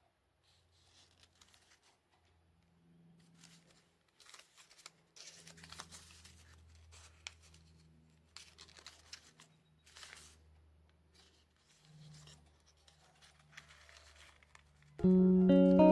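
Origami paper rustling and crinkling faintly in irregular soft crackles as folded paper units are slotted together by hand. Near the end, acoustic guitar music comes in suddenly and much louder.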